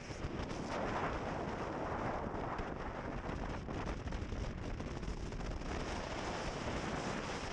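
Wind buffeting the microphone over the deep, steady rush of a boat underway at speed, with no clear engine tone.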